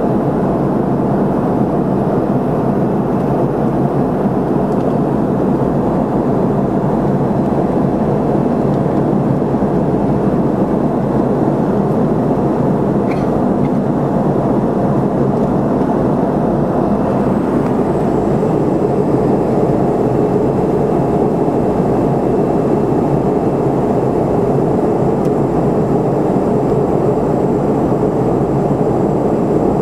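Steady cabin noise of a McDonnell Douglas MD-80 in flight: the drone of its two rear-mounted Pratt & Whitney JT8D turbofans heard through the fuselage. A faint high whine joins about halfway through.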